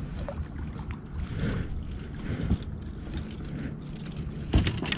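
Wind buffeting the microphone in an open boat, a steady low rumble, with a single sharp knock about four and a half seconds in.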